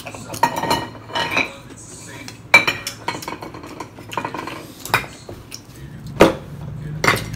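Metal spoon and fork scraping and clinking against steamed oyster shells as the meat is scooped out, with a few sharp clacks of shell on shell and dishes, the loudest about two and a half and six seconds in.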